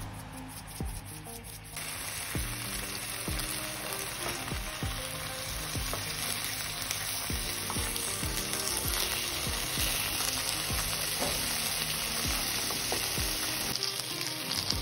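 Minced-meat Turkish kebabs sizzling as they fry in oil in a nonstick pan, starting about two seconds in. Tongs knock against the pan now and then as the kebabs are turned.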